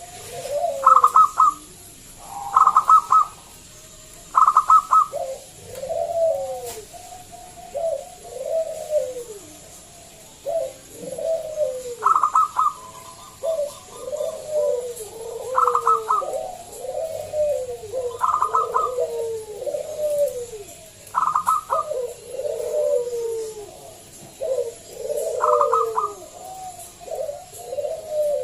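Zebra dove (perkutut) singing: runs of short, falling coos, broken every couple of seconds by a brief, higher, rapidly stuttered note.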